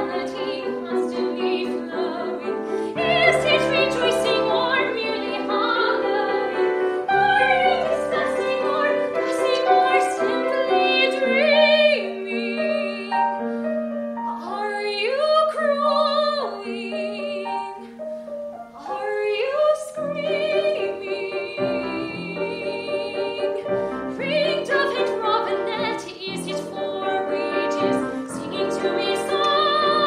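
Soprano singing a slow, lyrical art-song line with vibrato, accompanied by grand piano.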